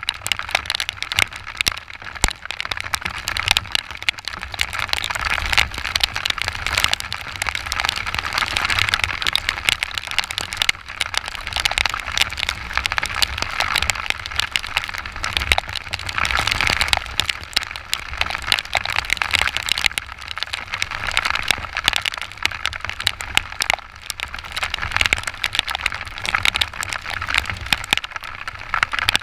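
Heavy rain pelting a motorcycle rider's camera on the move: dense, continuous crackling raindrop hits over a steady low rumble.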